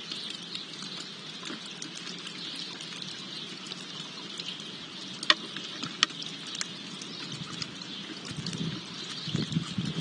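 Small garden fountain trickling steadily, with a few sharp clicks of birds pecking seed in a wooden feeding tray, the loudest about halfway through. Soft low knocks on the tray grow more frequent near the end.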